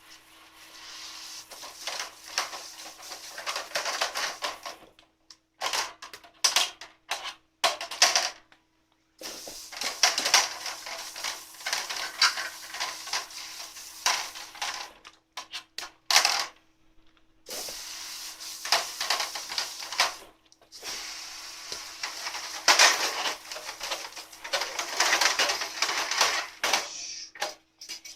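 Sooty metal panels of a Takibi no Hako G Special fire box being scrubbed and washed with water: clattering and clicking of metal over a steady hiss, in several stretches broken by abrupt silences.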